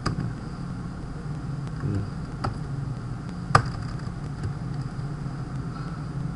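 A few scattered keystrokes on a computer keyboard, the sharpest about three and a half seconds in, over a steady low hum.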